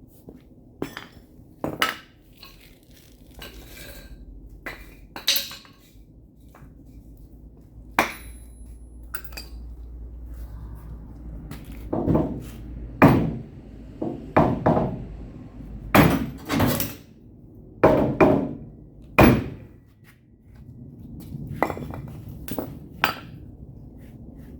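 A sledgehammer striking a block set against a pickup truck's steel quarter panel to drive the dented lower seam out: about a dozen irregular blows with a metallic clank, the heaviest coming in a quick run through the middle.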